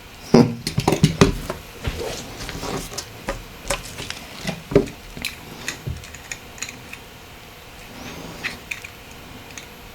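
Small clicks, taps and scrapes of the Nokia 8910i's plastic and metal parts and tools being handled during disassembly, coming thick and fast for the first few seconds and then thinning out to scattered ticks.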